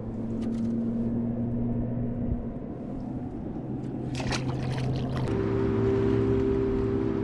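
Boat motor running steadily, its hum jumping to a new pitch in sudden steps twice, with a few short ticks in the middle.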